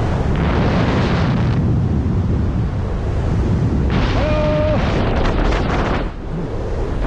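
Airflow buffeting the microphone of a paraglider pilot in flight, a constant low rumble with louder gusts near the start and again from about four to six seconds in. A short steady tone sounds once about four seconds in.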